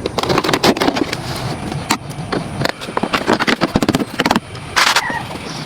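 Irregular clatter of sharp knocks and clicks with scraping between them, and a short hiss about five seconds in.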